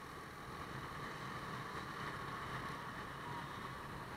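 Steady wind rush on the microphone and road noise from a motorbike riding along a street, with the bike's engine running underneath.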